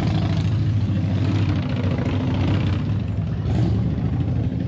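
Harley-Davidson V-twin motorcycle engines running steadily at low revs.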